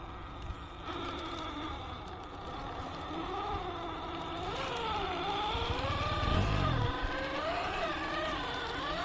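Electric motor and gearbox of an RGT EX86190 radio-controlled 4x4 off-road model whining as it drives, the pitch rising and falling with the throttle. There is a low rumble about six seconds in.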